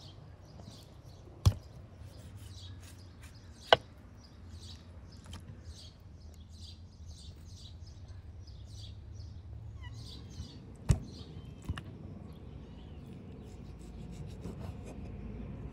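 Small birds chirping steadily, with three sharp knocks of a knife against a wooden cutting board about a second and a half, four and eleven seconds in.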